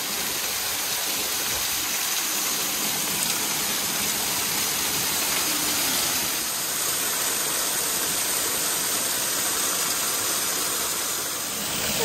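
Waterfall crashing onto rocks, heard from right behind the falling curtain of water: a steady rushing hiss, strongest in the highs.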